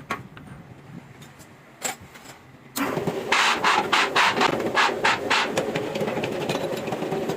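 A few light clicks, then about three seconds in a workshop machine starts suddenly and runs loudly, with a rhythmic rasping pulse about three to four times a second.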